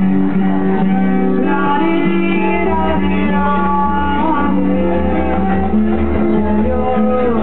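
Music: held melodic notes over a steady drone, with a deeper bass layer coming in about two and a half seconds in.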